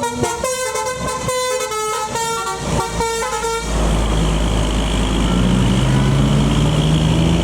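Arjuna Samba tour bus's telolet horn playing a sholawat melody, a run of separate pitched notes that stops about three and a half seconds in. Then comes the loud, low rumble of the bus's engine pulling up the climb.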